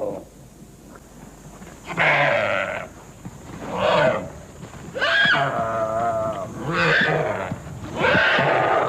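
Deer bleating in distress as Komodo dragons attack it: about five loud calls, the middle one long and quavering.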